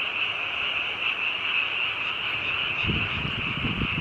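A loud, dense chorus of frogs calling without a break, a steady high-pitched trill. Low muffled thumps come in near the end.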